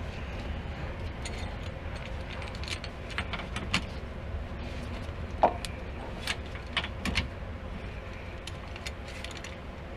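Scattered metal clicks and clinks of a socket wrench on the rear differential's fill plug as it is threaded back in and tightened, over a steady low hum. The loudest clink comes a little past halfway.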